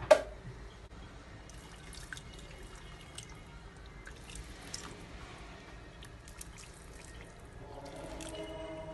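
Hot water poured from a kettle over pasta in a clay pot and then a glass dish, in several short pours. A sharp knock comes right at the start, and music with steady tones comes in near the end.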